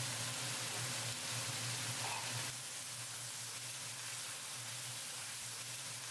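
Ground meat sizzling in a frying pan as it is turned with a wooden spatula, a steady hiss that drops a little about two and a half seconds in.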